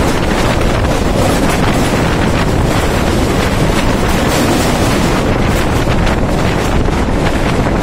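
Wind blowing hard on the microphone over the steady running noise of a moving passenger train.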